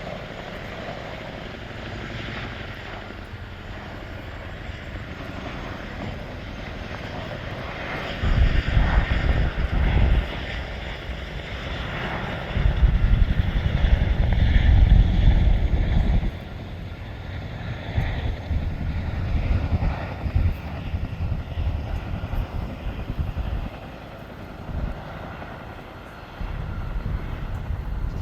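Chinook tandem-rotor helicopter running close by: steady turbine and rotor noise, with loud low rumbling surges that come and go several times.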